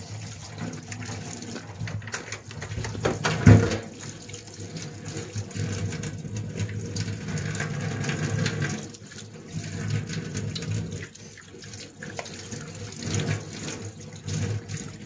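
A steady rush like water running from a kitchen tap, with scattered light clicks and one louder knock about three and a half seconds in.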